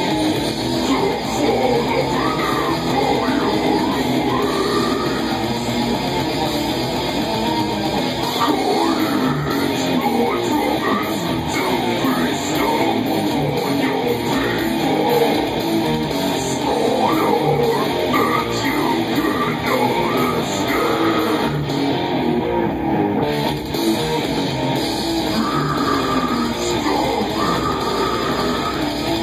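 Heavy metal music with guitar, and harsh death-metal vocals growled into a handheld microphone. The upper end of the music thins out briefly about three-quarters of the way through.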